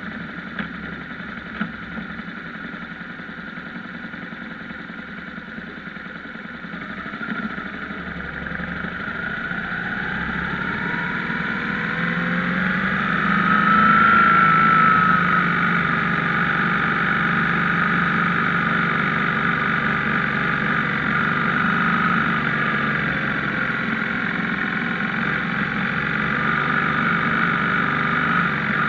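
BMW R1150GS boxer-twin engine while riding: running quietly at first, then the engine note climbs steadily over several seconds as the bike accelerates, peaks about halfway through, and settles into a steady cruising note.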